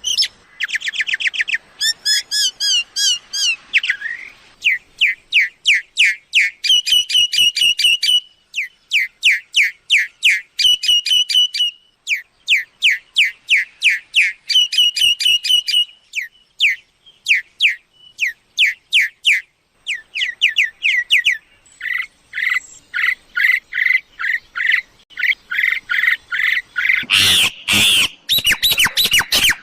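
Myna calling in long runs of quick, repeated downward-sweeping whistled chirps, several a second, with short pauses between runs. A few loud noisy bursts near the end.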